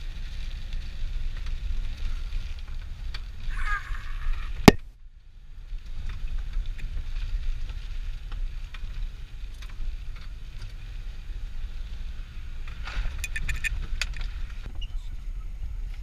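Vehicle driving along a rough, wet dirt track: a steady low rumble with scattered rattles and knocks. There is one sharp click a little under five seconds in, and a short cluster of clicks at about thirteen seconds.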